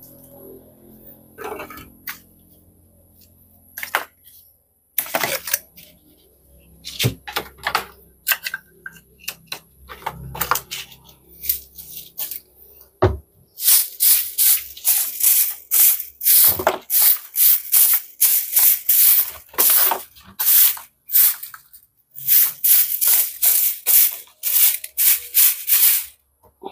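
Broom sweeping wood ash across a concrete hearth into a long-handled dustpan: scattered knocks and scrapes at first, then from about halfway a steady run of brisk scraping strokes, about two a second, with a short pause near the end.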